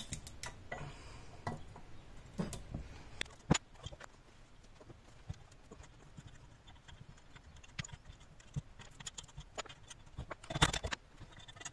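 Scattered metal clinks and knocks as a spanner works the nuts on a Pelton wheel hub and the cast metal buckets knock together on the bench. There is one sharp knock about three and a half seconds in and a burst of clattering near the end.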